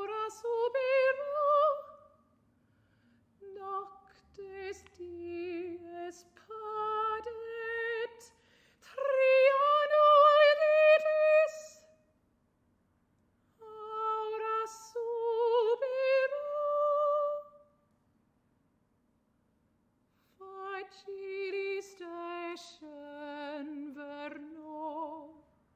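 Solo soprano singing unaccompanied with a strong vibrato, in four phrases with short silences between them.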